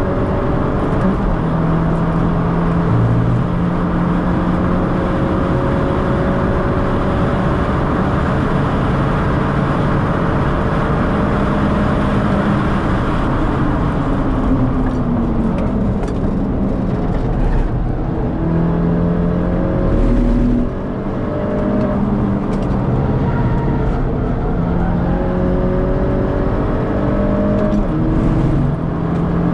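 Mini Cooper S R56's turbocharged 1.6-litre four-cylinder engine heard from inside the cabin, driven hard on track, with road and wind noise. The engine note climbs with revs, falls away about halfway through, then climbs again in steps through the gears.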